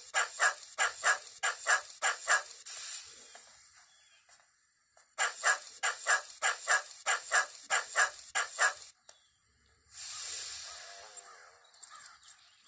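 A dog barking rapidly, about three to four barks a second, in two runs with a pause of about two seconds between them. Near the end there are a couple of seconds of hissing noise.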